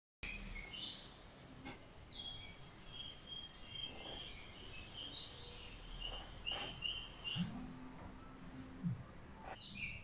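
Faint birds chirping: short, high calls repeated over the first seven seconds or so. A brief low hum lasts about a second and a half near the end.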